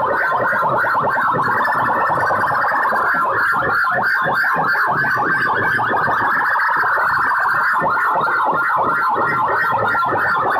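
Loud, harsh siren-like music blaring without a break from stacked horn loudspeakers in a DJ sound-box competition, pulsing rapidly, tinny with little deep bass.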